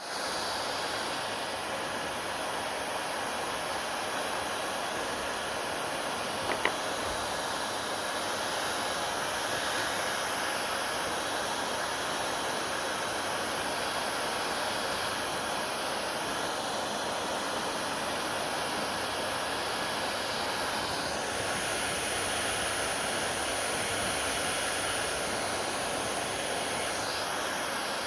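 Hair dryer running steadily, a constant airy rush of blowing air and motor noise. A single short click comes about six and a half seconds in, and the tone of the rush shifts slightly about 21 seconds in.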